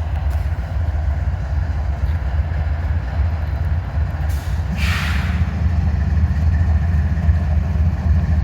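Diesel freight locomotives, GE Dash 9-44CW units among them, pulling an intermodal train into motion with a steady, heavy low rumble. About five seconds in comes a short burst of air hissing.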